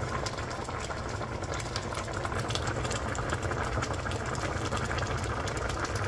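Spicy Korean stew boiling hard in a pan: a dense, continuous bubbling with many small pops, over a steady low hum.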